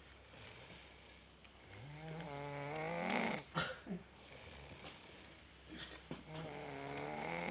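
A person snoring in a drunken sleep: two long snores about four seconds apart, each rising in pitch, with a couple of short clicks between them.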